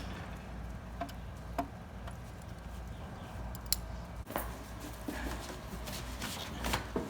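A few scattered light clicks and taps of parts being handled while a window air conditioner is put back together, over a steady low hum.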